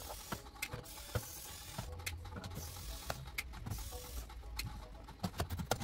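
Fast-forwarded handling of a plastic laptop bottom case: irregular sharp clicks and scrapes from hands and a screwdriver, coming in a quick cluster near the end.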